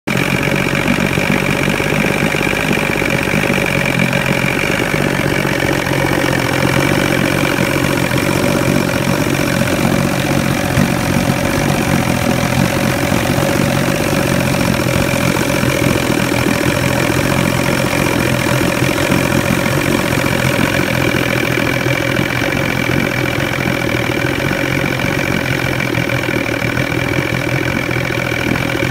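1989 Force 85 hp two-stroke outboard motor running steadily at an even speed after a tune-up, with a thin steady high whine over it.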